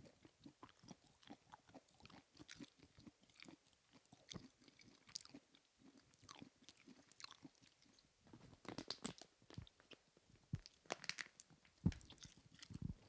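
A person chewing and biting on duck feet: faint, irregular crunching and small clicks, heavier for a few seconds about two-thirds of the way through.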